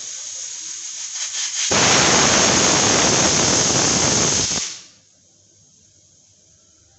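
Aluminium pressure cooker on a gas flame letting off its whistle: a soft steam hiss builds, then a loud blast of escaping steam runs for about three seconds and cuts off sharply. The cooker has reached full pressure and is venting through its weight valve.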